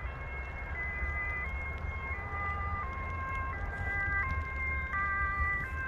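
An electronic siren-like warning signal: a cluster of steady tones that steps between pitches about every 0.7 s, repeating a fixed pattern, over a low wind rumble on the microphone.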